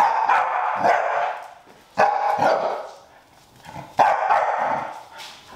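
Dog barking in three loud bouts, each starting sharply and lasting about a second, about two seconds apart.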